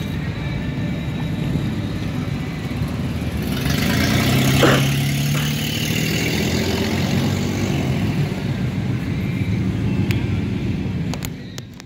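Cars driving past on a busy road, with engine and tyre noise throughout. About four seconds in, a car engine's low rumble swells louder as a car passes close by.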